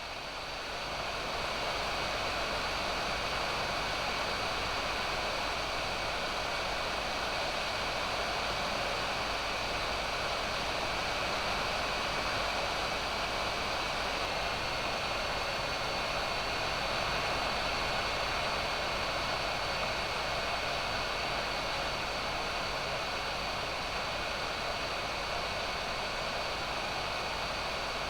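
Hot air rework station's PWM-controlled fan blowing hot air through the handpiece: a steady rushing hiss with a faint high whine, growing louder about a second in, as the air is played over an SMD IC to melt its solder for removal.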